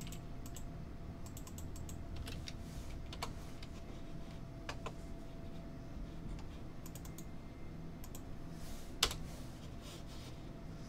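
Computer keyboard and mouse clicks, scattered in small groups, with one sharper click about nine seconds in, over a faint steady hum.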